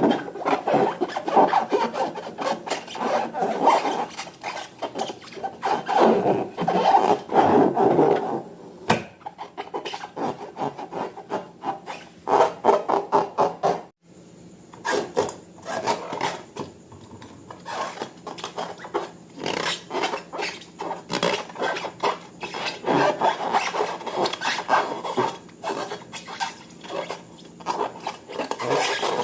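Slime and rubber balloons being handled and worked by hand: irregular rubbing, scraping and sticky crackling, with a sudden break about 14 seconds in.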